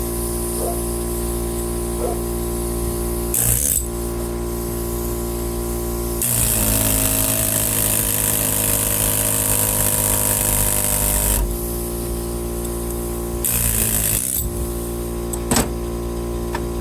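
Pneumatic air hammer chiseling at the resin-bound copper windings of an electric fan motor. It fires in bursts: a short one about three seconds in, a long run of about five seconds from about six seconds in, and another short one near fourteen seconds. A steady hum runs underneath.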